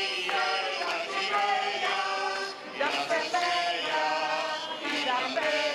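A group of voices singing together in held notes, like a choir or folk ensemble.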